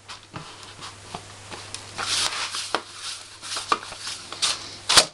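Hands working pizza dough on a metal baking tray: rubbing and patting, with scattered light knocks and one sharper knock near the end.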